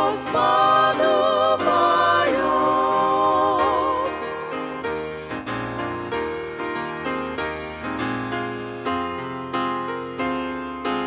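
A mixed vocal group singing in harmony with piano, the voices holding a final chord with vibrato and stopping a little under four seconds in. Solo piano then plays on, one note or chord after another, each ringing and fading.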